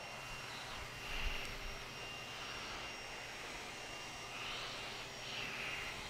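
Cordless Henry canister vacuum running on straight suction, its plain floor head with no brush roller being pushed back and forth over carpet: a steady motor whine that swells a little with some of the strokes.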